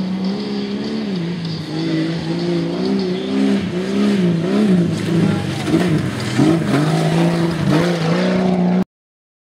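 Tuff truck engine revving hard, its pitch climbing and dropping again and again as the truck works the off-road course. The sound cuts off abruptly near the end.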